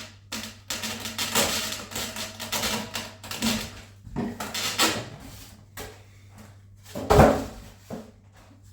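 Handling noises from assembling a foam RC biplane: irregular rubbing, squeaking and clicking as parts are fitted and the airframe shifts on its foam stand, with one louder knock about seven seconds in.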